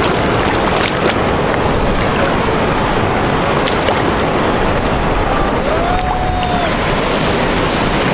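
Steady rush of wind buffeting the microphone over water sloshing and splashing as a young puppy wades and paddles through shallow water.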